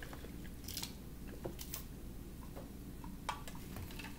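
A few faint, sharp clicks and ticks, spaced irregularly, as a drink is sipped through a straw from a large glass, over a low steady room hum.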